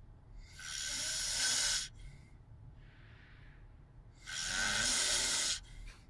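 A sleeping person snoring: two loud snores, each over a second long and about three and a half seconds apart, with a quieter breath between them.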